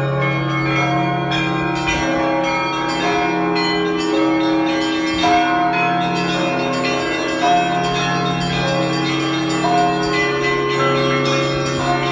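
Church bells ringing together: higher bells struck over and over, overlapping one another, above the deep, sustained hum of a large bell.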